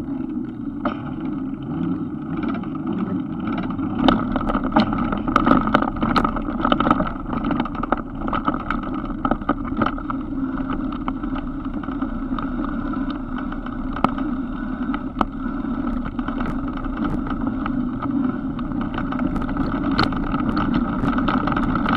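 Van driving slowly over a rough gravel track: steady engine and road noise, with scattered clicks and rattles from the bumpy surface.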